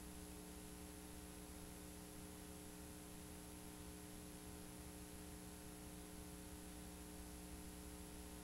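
Near silence: a faint steady electrical hum over a low hiss.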